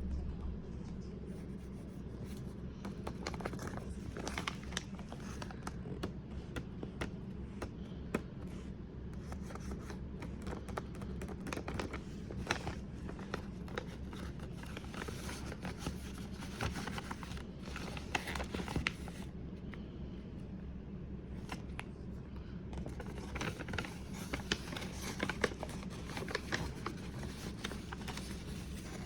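Handling noise: irregular rustling, scraping and small taps of objects being picked up and moved about, over a steady low hum.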